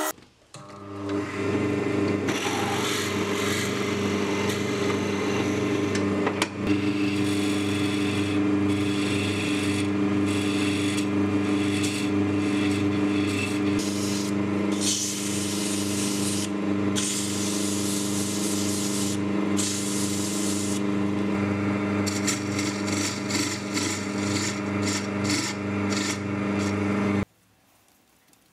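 Woodturning lathe running with a steady hum while a hand tool and then sandpaper are held against a spinning wooden cone, a rough scraping and rubbing that comes and goes. It cuts off abruptly near the end.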